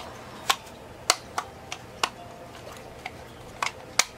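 Irregular sharp plastic clicks and knocks, about nine in four seconds, from the battery compartment of an Eheim Everyday automatic fish feeder as its AA batteries and battery door are fitted by hand.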